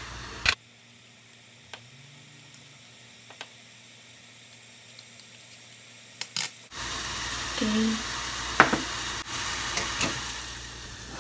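A metal measuring spoon tapping and scraping faintly against a small tin as matcha powder is scooped out: a few light ticks, with a louder pair about six seconds in. Then a steady hiss of water heating in an aluminium pot on the stove starts suddenly and runs on.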